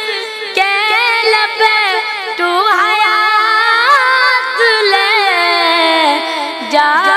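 A boy singing a manqabat solo, with no instruments. He holds long, high notes and ornaments them with wavering turns in pitch.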